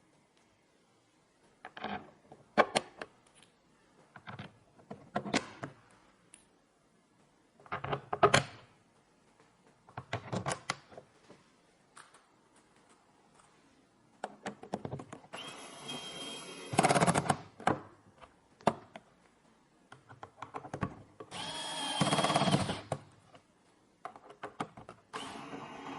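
Small clicks and knocks of computer parts being handled, then an electric screwdriver running with a steady whine in bursts of one to three seconds, three times in the second half, driving screws during a PC assembly.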